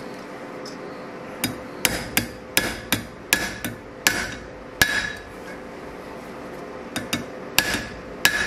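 Hammer blows on a steel round-bar ring pushed over a steel handle, driving it down to close the gap between its ends. The sharp metal strikes begin about a second and a half in, some with a short ring. They pause for about two seconds in the middle, then start again.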